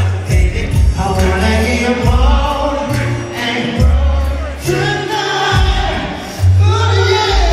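Live concert recording of a male singer performing into a microphone over a loud backing track with deep bass notes that change about once a second, with many voices from the crowd singing along.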